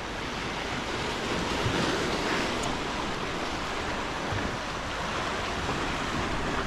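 Steady surf washing and breaking over shoreline rocks, with wind buffeting the microphone.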